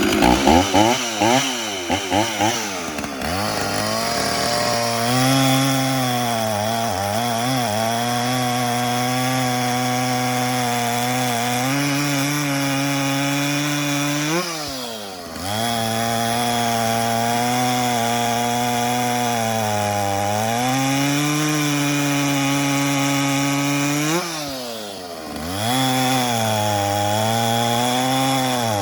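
Stihl 044 70cc two-stroke chainsaw blipped up and down a few times, then held at high revs working through wood, with two brief drops in revs that pick back up. It runs a semi-chisel chain with the rakers taken down, which the owner says makes it grabby and hard on the saw.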